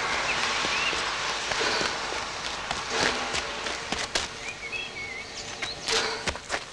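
Scattered footsteps and sharp clicks outdoors over a hiss that fades, with a few short bird chirps.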